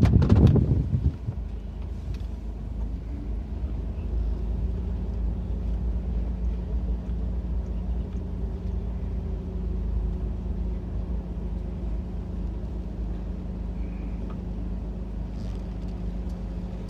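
Motor vehicle engine running steadily with a low hum, after a loud rumble in the first second.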